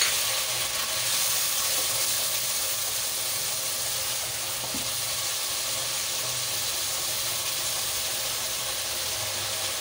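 Tomato-onion masala gravy with fried koftas sizzling and bubbling in a non-stick wok, with a spatula stirring through it. A steady sizzling hiss.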